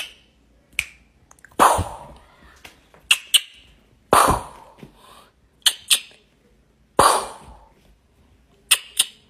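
A person making mouth gunshot noises: quick clicks, mostly in pairs, then a louder burst that fades, repeated about every three seconds, three bursts in all.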